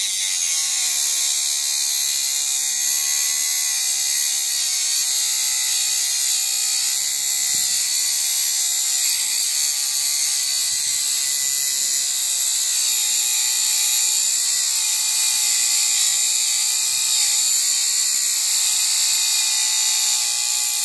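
Homemade mini grinder, a 12-volt DC motor with a small cutting disc on its shaft, grinding into a concrete nail: a steady high hiss of cutting over the motor's whine, which dips and recovers as it is pressed against the nail.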